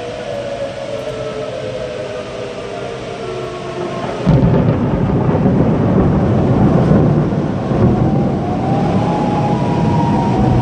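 Outdoor tornado warning sirens wailing, their pitch slowly falling and later rising again. About four seconds in, a sudden loud boom of thunder breaks in and rolls on as a heavy rumble under the sirens.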